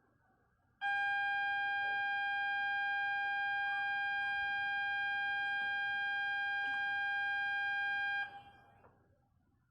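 A single steady high tone with no change in pitch, buzzer- or horn-like, held for about seven seconds and then cut off. It is part of the real-train sound effects played along with the model train.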